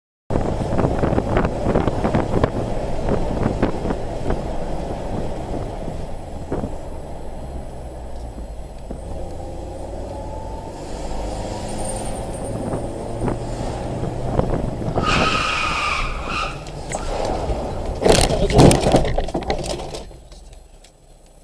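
A car driving, with engine and road noise heard from inside the cabin. A horn sounds for about a second and a half, and a couple of seconds later comes a crash: a few loud impacts as the car hits an obstacle.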